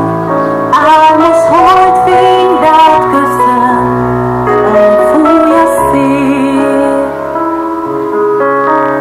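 Slow song with a female voice singing over piano or keyboard accompaniment.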